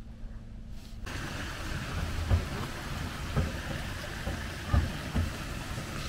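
Outdoor ambience with a steady hiss and wind rumbling on the microphone, broken by a few loud low thumps; the hiss suddenly gets brighter about a second in.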